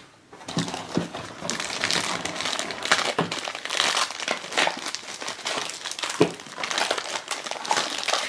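A crinkly plastic blind bag being crumpled and pulled at by hand as it is worked open, giving a dense, continuous crackling crinkle that starts about half a second in.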